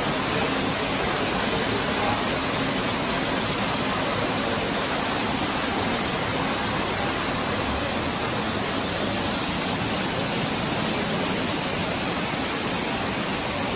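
Water rushing steadily as one even, unbroken noise.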